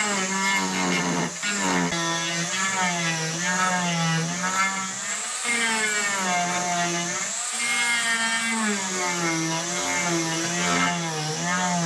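Angle grinder with an extension shaft and a sanding cup disc, running while it sands the hollow of a mango-wood bowl. The motor whine wavers up and down in pitch as the load changes, over the hiss of the abrasive on the wood.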